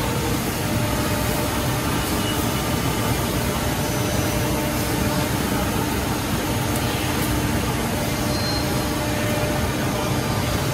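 Steady mechanical hum and rush of woodworking machinery running: a CNC point-to-point machining center with its dust extraction, with a faint steady tone through it.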